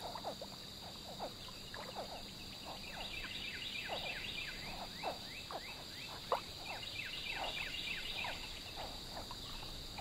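Wetland chorus: a steady, high-pitched insect drone under many short, falling chirps from calling frogs, a few a second.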